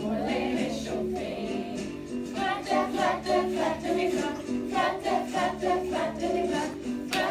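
A class of young children singing a song in French together, over instrumental accompaniment with sustained low notes.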